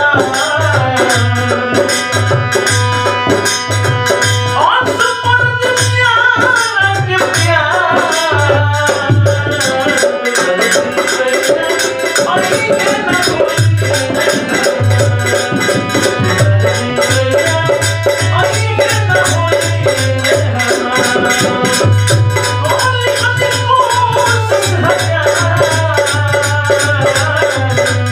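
Bhojpuri Holi folk song music: a held melody over a steady, evenly repeating drum beat with shaker-like rattling.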